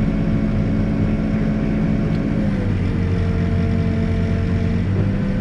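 Backhoe's diesel engine running steadily under work. Its note dips a little about two and a half seconds in and picks back up near the end.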